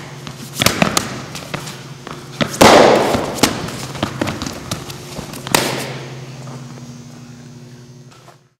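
Sharp smacks and thuds of a ground-defence baton drill on gym mats, five or six hits in about six seconds, each with a ringing tail, the loudest about a third of the way in and again past halfway, over a steady low hum; it all fades out near the end.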